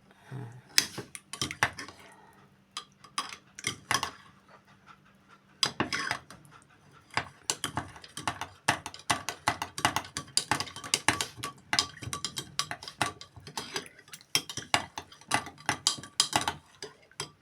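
Spoon clinking against a dish in quick, irregular taps, sparse for the first few seconds and rapid and steady from about six seconds in, as ingredients for a homemade cough remedy are mixed.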